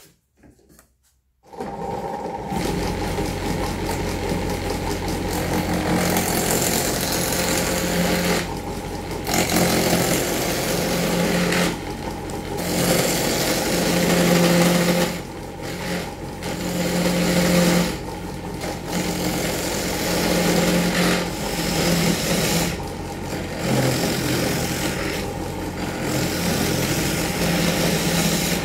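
Homemade wooden lathe's electric motor starting about a second and a half in and running steadily, while a turning chisel cuts a spinning wooden spindle, the rough cutting noise coming and going in strokes with short breaks.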